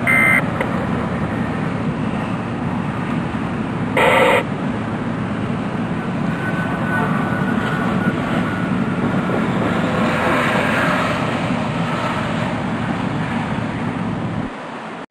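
Steady rushing roadside noise of passing traffic and open-air rumble, broken by two brief loud bursts about four seconds apart.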